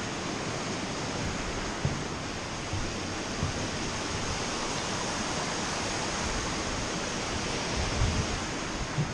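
Steady rushing of river water pouring through an arched opening and splashing over rocks.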